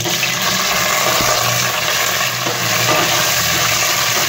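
Raw chicken pieces dropped into hot oil with fried onions, setting off a loud, steady sizzle of frying as they are stirred in a steel pot.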